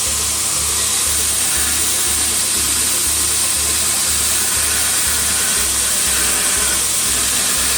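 Ameribrade 2x72 belt grinder running a 120-grit belt, grinding steel: a loud, steady, high hiss of abrasive on metal over the machine's hum.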